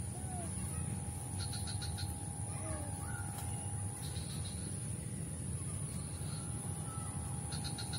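Birds calling: scattered short chirps and two quick runs of rapid repeated notes, over a steady low rumble.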